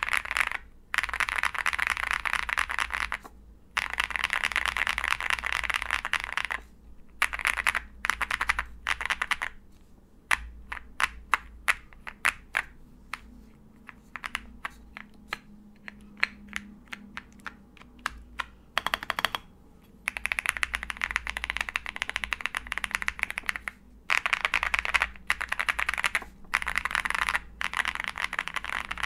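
Typing on an OwLabs Jelly Epoch mechanical keyboard with tactile Holy Boba switches, polycarbonate plate and MT3 PBT keycaps: fast runs of keystrokes with short pauses, and slower separate key presses through the middle.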